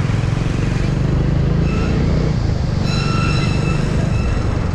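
Hero Splendor's small single-cylinder four-stroke engine running steadily under way, with road and wind noise; the engine has just come back from an overhaul and is being run in at low speed. A horn sounds twice, briefly about two seconds in, then longer for just over a second.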